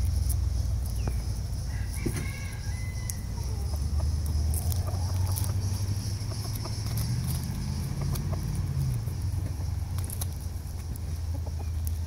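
Roosters and hens clucking now and then, with a few short high calls about two seconds in, over a steady low rumble.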